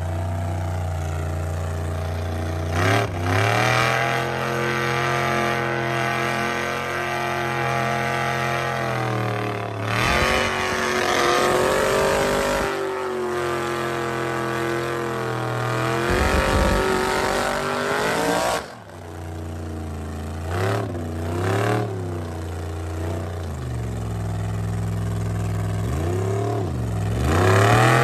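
Mud bog truck's engine held at high revs as it churns through a deep mud pit, the pitch rising and falling with the throttle. In the last part, several quick drops and climbs in revs.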